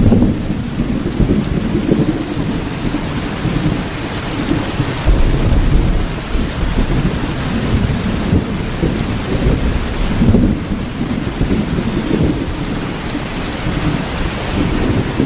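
Steady rain with a low rumble of thunder underneath, swelling a little about five seconds in and again around ten seconds.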